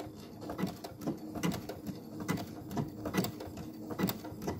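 Brother Innovis 6700D Quattro 2 sewing machine stitching a decorative pattern at slow speed: a steady motor hum with evenly spaced needle strokes about twice a second.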